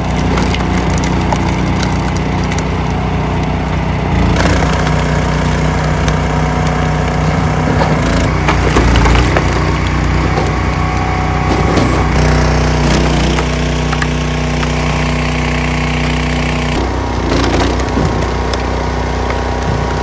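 Timberwolf TW-5 HD log splitter at work: its small gas engine runs steadily while the hydraulic ram forces logs through the splitting wedge. The wood cracks and splinters in a crunchy, irregular stream. The engine note shifts several times as the load changes.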